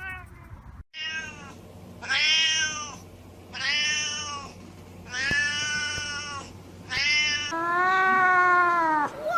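Domestic cats meowing: a Siamese cat gives five loud, high meows in a row, then a long-haired cream cat gives one long, drawn-out meow near the end.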